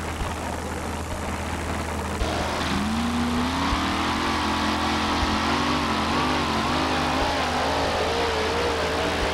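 Supercharged engine of a two-wheel-drive super modified pulling truck launching hard with the sled, its note climbing about two seconds in and then held at high revs under heavy load, the pitch wavering as the truck wheelies down the track.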